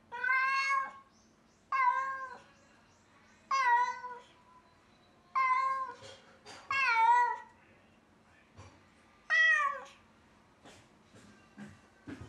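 Domestic cat meowing loudly and plaintively, six long drawn-out cries a second or two apart, as it calls for its absent owners; the owners suspect feline separation anxiety. A few faint ticks follow near the end.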